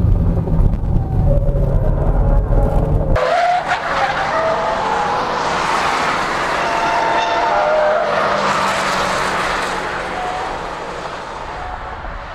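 A Hyundai LF Sonata's engine drones heavily inside its cabin during a race; about three seconds in, the sound switches to trackside, where saloon race cars corner with tyres squealing over their engine noise.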